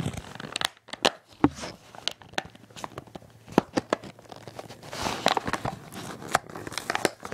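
A NASCAR model car's box being opened by hand: irregular crinkling, tearing and small clicks of the packaging.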